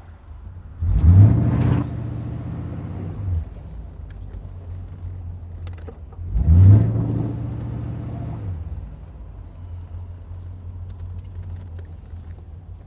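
1981 Corvette's 350 V8 engine accelerating twice under way: each time the engine note climbs quickly, holds for a couple of seconds, then falls back to a steady low cruise.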